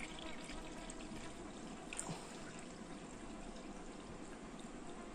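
Water pouring in a thin, steady stream from a plastic jug into a plastic basin, filling it. A light click about two seconds in.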